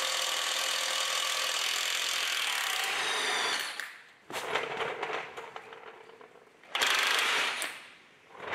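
Cordless impact wrench hammering steadily on a rusty nut of a truck's front axle mounting, then stopping about three and a half seconds in. A second short burst of noise follows about seven seconds in.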